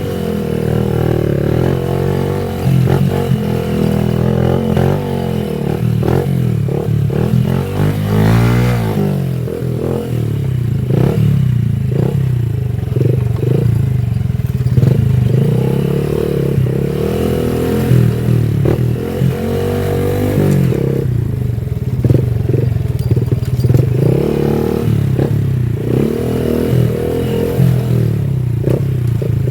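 Honda Wave 110i's small single-cylinder four-stroke engine running on the move, its pitch rising and falling as the throttle changes, with rattles and knocks from the bike over the road.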